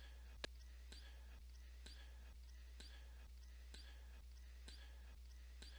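Near silence: room tone with a steady low hum and faint, evenly spaced ticks a little over twice a second, one slightly sharper click about half a second in.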